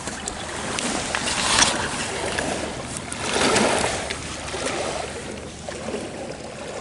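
Wind buffeting the camera microphone, rising in gusts twice, with a few clicks and rustles of the camera being handled.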